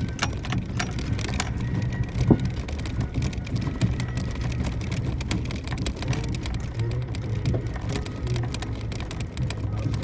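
Suzuki Jimny JB64's 660 cc turbo three-cylinder engine running at a steady low drone as it drives a gravel forest road. Tyres crackle and patter on loose stones, with one sharper knock a little over two seconds in.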